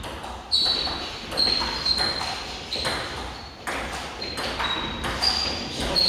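Table tennis ball in a doubles rally, struck back and forth off bats and table: a quick run of sharp pings, one to two a second, each with a short ringing tone.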